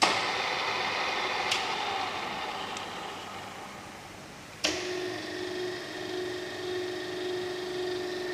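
A radial drill machine's electric motor switches on sharply, and its whir fades away over about four seconds, with a short click along the way. A little past halfway, a motor starts again and runs with a steady hum.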